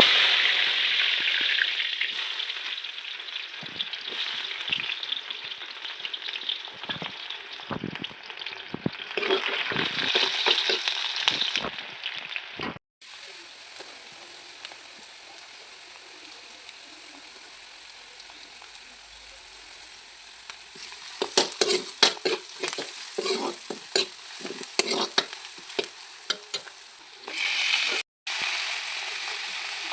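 Food sizzling in hot oil in a pan on the fire, loudest as the ingredients go in at the start and then settling to a steadier sizzle. In the second half a spatula stirs, scraping and knocking against the pan.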